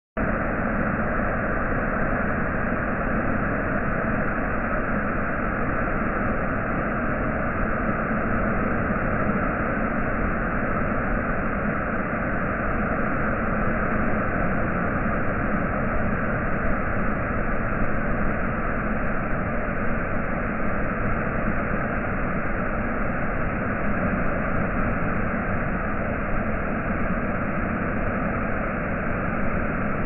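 Waterfall pouring down a rock face and splashing at its base: a steady, unbroken rushing of water.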